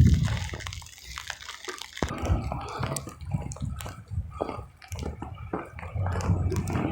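Water dripping and pattering in irregular ticks, over a low rumble.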